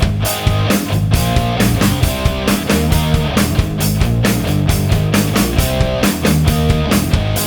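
Background rock music with electric guitar and a fast steady drum beat.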